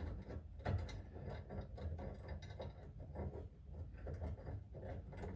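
Faint, irregular small clicks and light knocks of metal parts being handled while fitting sway bar end-link hardware and a spacer.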